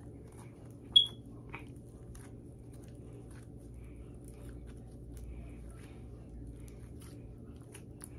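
Faint sticky clicks and crackles of slime being handled and pulled through tennis racket strings by fingers. A short, sharp high squeak comes about a second in, with a smaller one just after.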